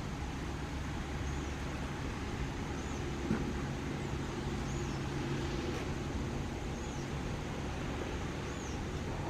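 Steady outdoor background rumble like distant road traffic, with a faint, thin, high chirp repeated about once a second.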